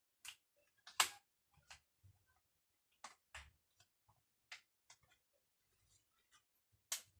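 Irregular small sharp clicks and ticks, about a dozen, the loudest about a second in and another just before the end.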